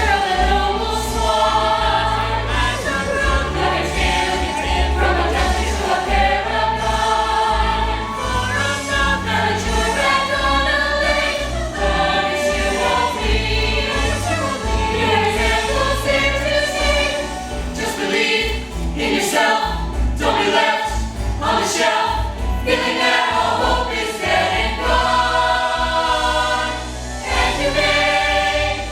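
A musical-theatre cast singing together in chorus over instrumental accompaniment with a steady bass line.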